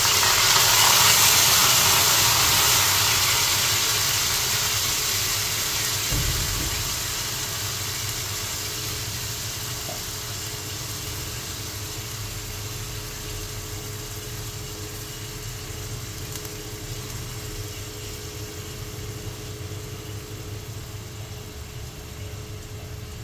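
Soaked rice hitting hot ghee in a kadhai: a loud sizzle that peaks about a second in and dies down slowly as the wet grains fry. A steady low hum runs underneath.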